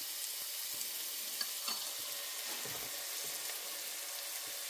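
Pieces of leftover steak sizzling steadily in oil in a nonstick frying pan, with a couple of faint clicks about a second and a half in.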